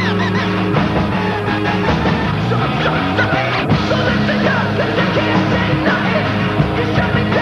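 Loud rock music with vocals, a band playing continuously.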